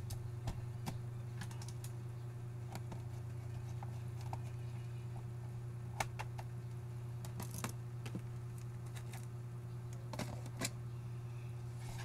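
Scattered sharp plastic clicks and taps as an Acer Aspire A314-32 laptop's bottom case is handled and its hard-drive access cover is worked loose and removed, over a steady low hum.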